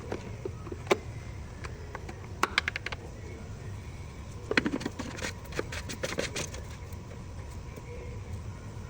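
Metal hand tools clicking and clinking during work on a truck's power-steering filter: a single sharp click, then a quick run of about eight clicks, then a looser cluster of clinks and knocks, over a steady low hum.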